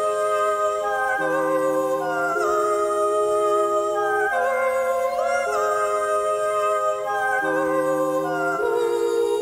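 Background music: a sliding lead melody over held chords that change about once a second.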